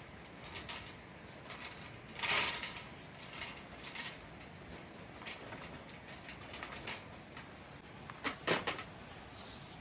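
Scattered handling noises: a brief rustle or scrape about two seconds in and a quick run of three sharp knocks near the end, over a faint steady background.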